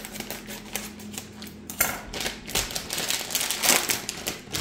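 Plastic bag of shredded mozzarella crinkling and rustling as it is handled, a quick run of crackles that grows busier about halfway through.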